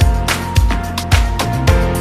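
Background music with a steady beat of about two strong pulses a second under sustained melodic notes.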